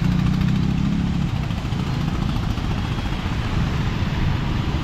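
Road traffic: a vehicle engine's low hum fades out after about a second, over a constant rushing noise.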